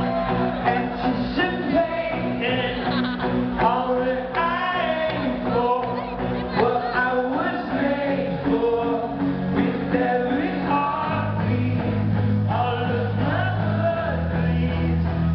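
Live rock band music with a male lead vocalist singing into a handheld microphone. Held low notes come in during the second half.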